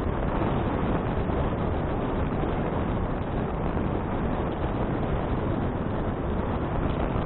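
Steady wind rumble on an action camera's microphone while riding a bicycle, an even rushing noise.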